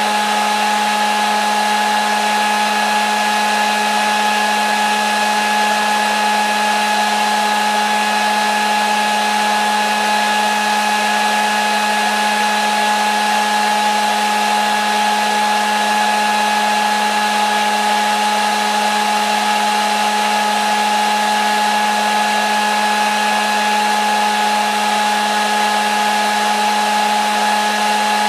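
Hair dryer running steadily: a constant rush of air with a steady motor whine, unchanging throughout.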